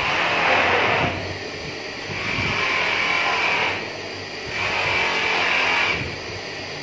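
Electric bench polishing motor running with a steady hum while an aluminium motorbike hub brake plate is pressed against its buffing wheel three times, about a second each. Each contact brings up a higher rubbing noise that drops away when the plate is lifted off.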